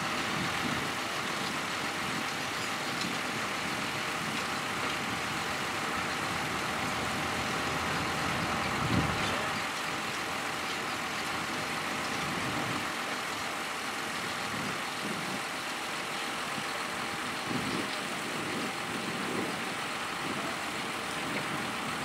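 Tractor engines running steadily as the tractors pull mounted ploughs through the soil, with a short low bump about nine seconds in.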